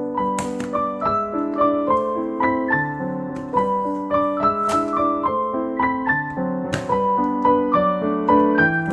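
Background piano music: a melody of single notes moving every fraction of a second over held lower chords, with a few soft swishes.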